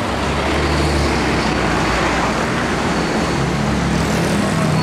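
City street traffic: motor vehicles running past with engine rumble and road noise, the low rumble strongest in the first second or two.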